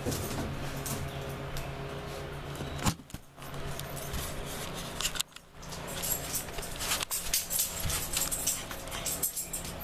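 A dog's metal collar and tags jingling as the dog moves, in irregular clusters of clinks that grow busier in the last few seconds. There is a single sharp knock about three seconds in.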